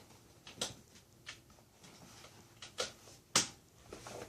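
A handful of sharp clicks and light knocks, spaced irregularly, the loudest about three and a half seconds in: a USB cable and connector being handled and plugged in.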